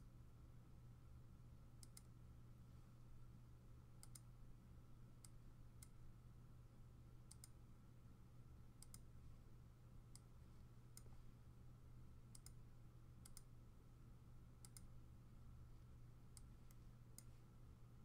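Faint computer mouse clicks, scattered about once every second or so, over a steady low electrical hum.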